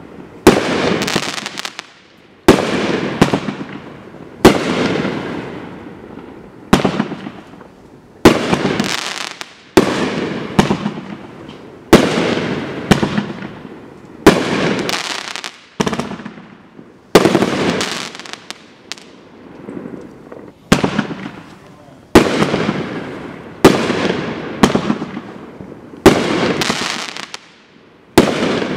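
Dominator 500 g consumer firework cake (1.4G) firing shot after shot, roughly one a second and sometimes two close together. Each shot is a sharp bang followed by a tail that fades over a second or two.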